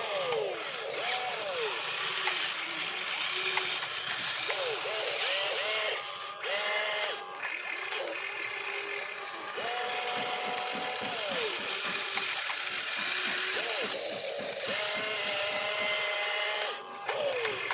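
Small electric gear motors of a radio-controlled construction vehicle whining, their pitch rising as each motor starts and falling as it stops, over and over, with some held stretches of a few seconds.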